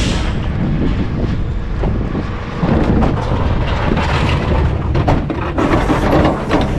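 Garbage truck running with a steady low rumble, its body rattling and knocking. It gets louder about two and a half seconds in.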